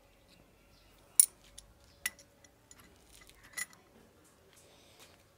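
A few sharp metallic clicks and clinks, the loudest about a second in and others near two and three and a half seconds in, from handmade steel rebar pliers being worked in the hand.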